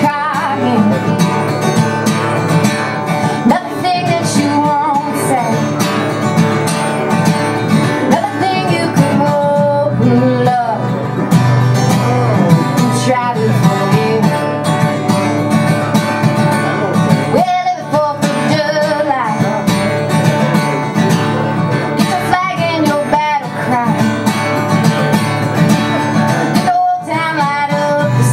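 Woman singing a folk song while strumming an acoustic guitar.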